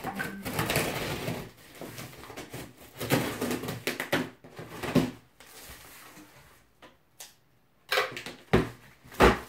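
Packing tape on a large cardboard box being slit with scissors, with scratchy rasping and cardboard rustle in bursts over the first five seconds. After a pause come a few sharp knocks of cardboard being handled near the end, the last one the loudest.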